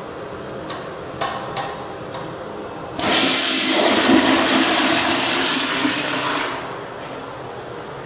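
2019 Gerber Ultra Flush pressure-assisted toilet flushing: a couple of clicks, then a sudden loud rushing whoosh about three seconds in that lasts roughly three and a half seconds. It drops to a quieter steady hiss of running water.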